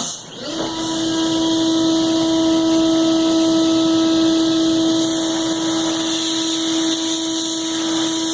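Brother Speedio S700X1 CNC vertical mill spindle spinning up in about half a second, then running steadily at 19,500 RPM with a high-pitched whine over a constant hiss.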